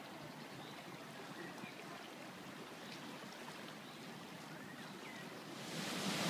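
Swollen river in flood rushing steadily, with a few faint short high chirps over it. The rushing gets much louder and brighter about a second before the end, as the rapids come close.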